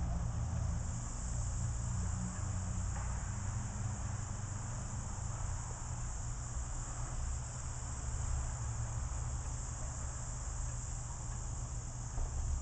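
Steady outdoor background: a constant low rumble under an even, high-pitched hiss, with no distinct event.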